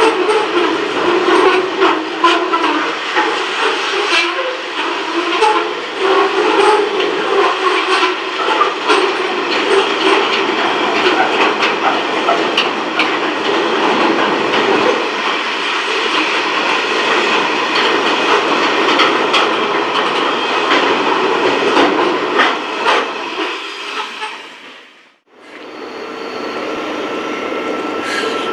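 Long freight train of container and tank-container wagons passing close by at speed: a steady rolling rumble with rapid wheel clicks over the rail joints. About 24 s in it fades out, and after a break a quieter steady sound of an approaching train takes over, with a faint held tone.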